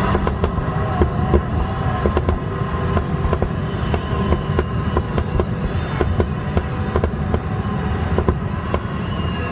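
Fireworks going off in quick succession: many sharp bangs and crackles over a continuous low rumble.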